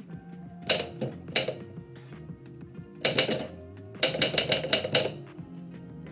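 Typewriter keys striking the platen in bursts: a few strokes about a second in, a short cluster about three seconds in, then a quick run of about eight strokes, over steady background music.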